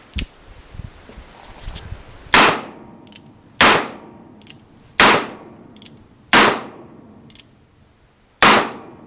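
Single Action Army 1873 replica revolver fired five times at an unhurried pace, a shot every second and a half or so with a longer pause before the last. Each shot is a sharp crack with a short ring-out, and a faint click comes between shots.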